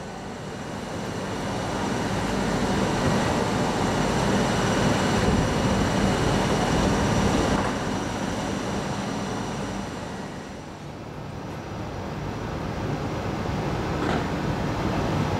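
Steady running noise of a train in a station, louder for a few seconds, dipping about ten seconds in, then rising again.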